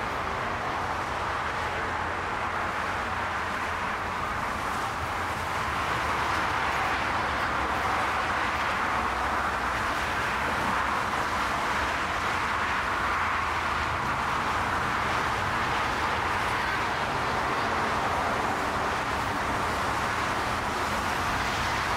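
Jet engine noise from an Airbus A380 on the ground: a steady, even roar that grows a little louder about six seconds in and then holds.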